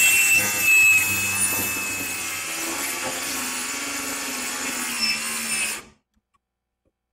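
Cordless angle grinder with a cutting disc cutting into a rusted, seized steel bolt: a steady grinding hiss with a thin high whine. The sound grows quieter over the first couple of seconds and cuts off suddenly near the end.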